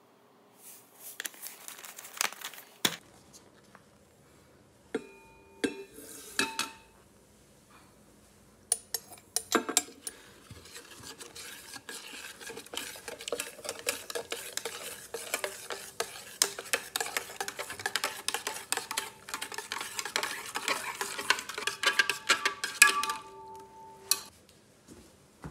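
Lye (sodium hydroxide) being poured from a glass measuring cup into water in a stainless steel pot, then stirred to dissolve: a few clinks first, then rapid, continuous clinking and scraping of a utensil against the steel pot for about fourteen seconds.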